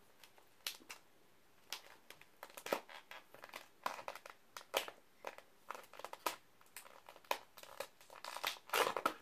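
Clear plastic deli tub of macaroni and cheese being opened: the plastic lid crinkling and crackling as it is pried off. Sparse at first, then a busy run of sharp crackles from about two and a half seconds in, loudest near the end.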